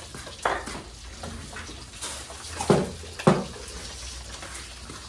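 Kitchen clatter: short knocks of utensils and cookware, once about half a second in and twice close together around the three-second mark, over a steady low hum.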